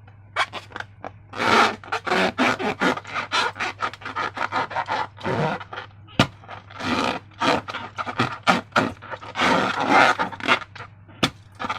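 Slime being worked and squished by hand: a rapid series of short scraping, crackling strokes, several a second, with a brief pause about halfway through.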